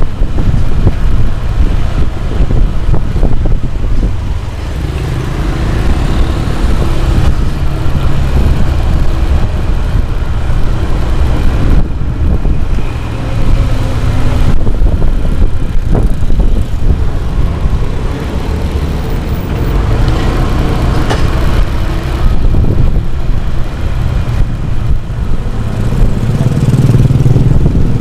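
Motorcycle riding at road speed, its engine running under a loud, steady rumble of wind on the microphone.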